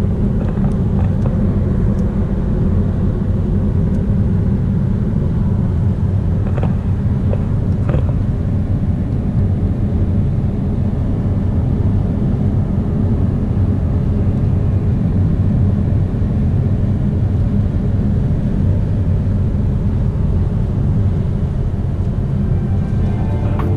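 Steady low road and engine rumble inside a moving car's cabin, with a few faint ticks.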